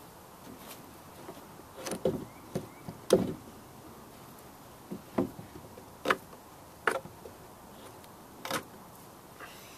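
Sharp clicks and knocks at irregular intervals, about eight of them, the loudest about three seconds in: a knife trimming the loose twine ends on the lashings of a stick-frame backpack, with the wooden sticks of the frame being handled.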